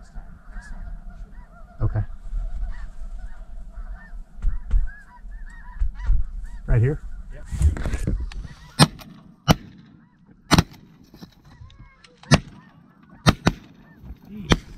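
Snow geese honking, many short high calls overlapping, then a volley of about seven shotgun shots spread over the last six seconds as hunters fire repeatedly at a single blue goose that takes several hits to come down.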